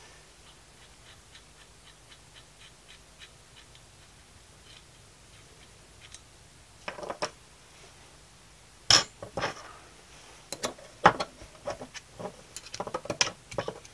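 Steel brake pipe flaring tool and spanner clinking and clanking as the tool is undone to free a freshly double-flared copper-nickel (Kunifer) brake pipe. It is mostly quiet at first, with faint ticking. Sharp metallic clanks begin about seven seconds in and come thick and fast near the end.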